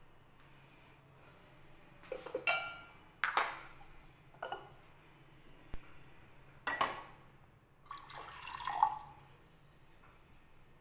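A saucepan of water being handled on a gas hob: a series of metallic clinks and knocks, some ringing, with some sloshing of water. The sharpest clink comes about three seconds in, and a longer scraping, clattering stretch comes near the end.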